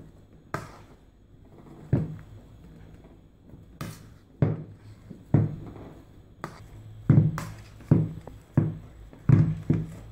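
Fork mashing boiled potatoes in a bowl: short, irregular knocks of the metal fork against the bowl, coming faster and louder in the second half.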